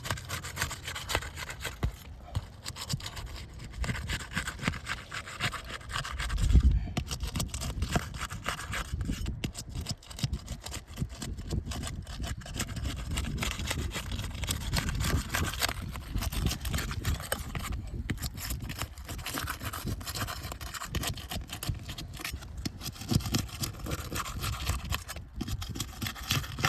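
A flat metal roofing tool scraping and rubbing as it is worked under asphalt shingle tabs to break their adhesive seal strips, with scattered small clicks. There is a brief low thump about six and a half seconds in.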